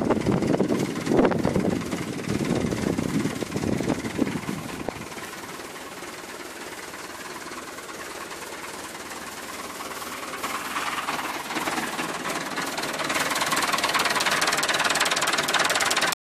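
Massey Ferguson 275 tractor's diesel engine working under load while its rear rotary tiller churns through the soil. Loud and uneven for the first few seconds, quieter in the middle, then a steadier, higher-pitched rush builds over the last few seconds.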